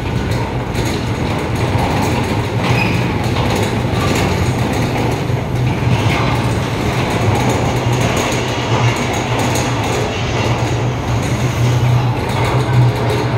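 Earthquake simulator shaking through a simulated magnitude 7.8 quake: a loud, steady low rumble with rattling noise over it.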